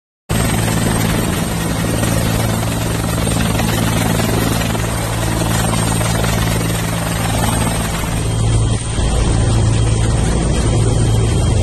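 Helicopter running with its rotors turning, a loud, steady rotor and engine noise that starts abruptly. About eight seconds in it dips briefly and then goes on with a deeper pulsing.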